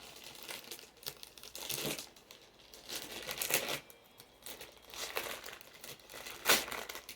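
Taped packaging being torn and crinkled open by hand, in a series of irregular rustling rips, the loudest one near the end.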